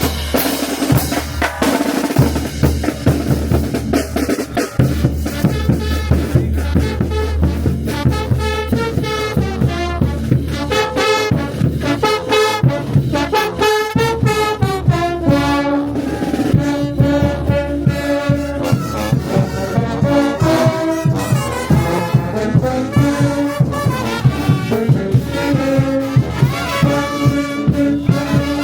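Brass band of trumpets and trombones with drums playing a lively tune over a steady beat. For the first few seconds the drums carry it, then the brass melody comes in.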